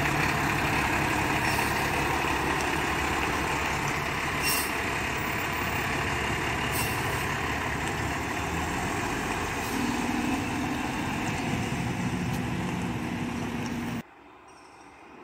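Mack LR garbage truck with a Heil Freedom body, its engine running loudly as the truck pulls away, with a couple of short hisses of air from its air brakes. Near the end the sound cuts off suddenly to a much quieter street.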